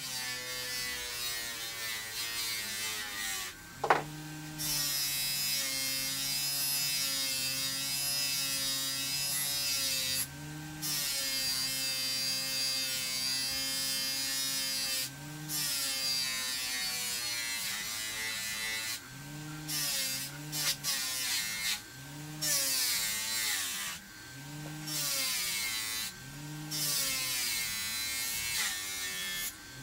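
Bench grinder running, with steel held against the spinning wheel in repeated passes: a steady motor hum under a hissing grind that breaks off briefly each time the piece is lifted, more often in the second half.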